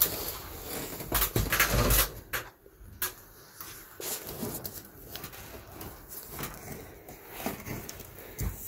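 Knocks and clatter of a man climbing a stepladder and reaching up to the suspended ceiling tiles, loudest in the first couple of seconds, then quieter rustling with scattered clicks.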